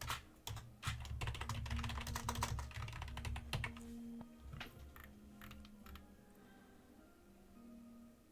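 Typing on a computer keyboard: a quick run of keystrokes for the first three and a half seconds, then a few scattered keystrokes that stop about six seconds in. Soft background music plays underneath.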